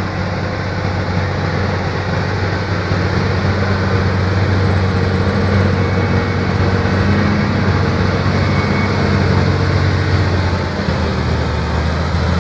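Large tractor's diesel engine working steadily under load as it pulls a mounted plough through the soil and passes close by, with a constant low hum that grows slightly louder a few seconds in.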